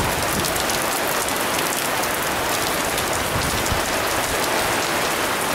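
Steady rain falling on a canopy and a wet tiled terrace: a dense, even patter of drops.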